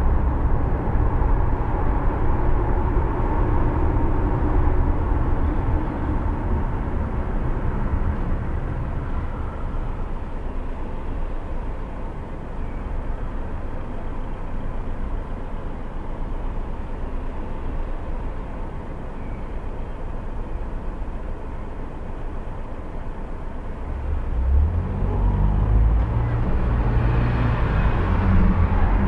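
Car driving in city traffic: steady engine and road rumble that eases off for a while in the middle as the car slows and stops at a red light, then rises again near the end as it pulls away.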